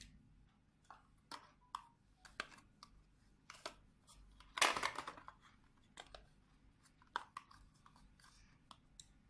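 Small plastic toy pieces being handled: scattered light clicks and taps, with one louder rustle about halfway through.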